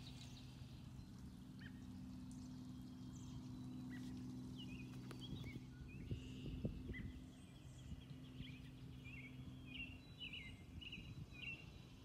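Outdoor ambience of birds chirping and calling, with short high calls coming more thickly in the last few seconds, over a faint steady low drone that fades about seven seconds in.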